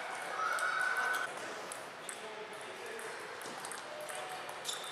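Table tennis balls clicking sharply off rackets and table, the serve and rally of a point mixed with clicks from neighbouring tables, over a low murmur of voices. About a third of a second in, a steady high squeak lasts about a second and is the loudest sound.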